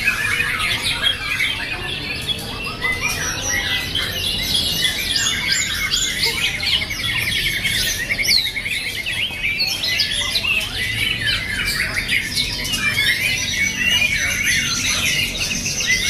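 Many caged songbirds singing at once on a contest hanging frame: a dense, unbroken chorus of overlapping chirps, whistles and fast trills.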